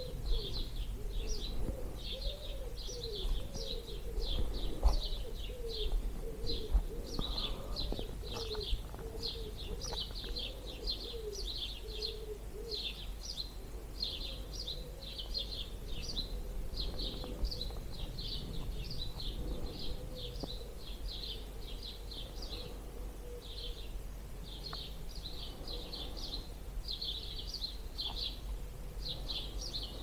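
Dawn chorus of songbirds, many high chirps and trills overlapping without a break. A lower wavering call runs beneath them for about the first dozen seconds. A low wind rumble sits under it all.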